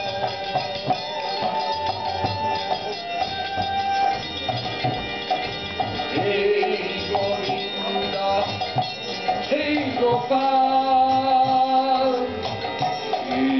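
Devotional bhajan: a man singing into a microphone over a harmonium's sustained reed chords, a transverse flute and a two-headed barrel drum (mridanga).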